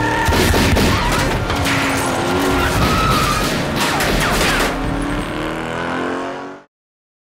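Film car-chase sound mix: a rapid run of gunshots, then a car engine revving hard with tyres squealing, over background score music. The sound cuts off suddenly near the end.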